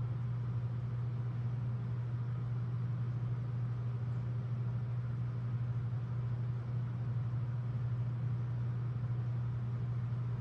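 A steady low hum with a faint even hiss behind it, unchanging and with no other events.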